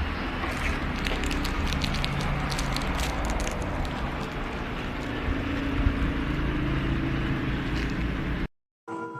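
A steady low rumble like a running road vehicle, with a faint hum and scattered clicks and rattles over the first few seconds. It cuts off abruptly shortly before the end.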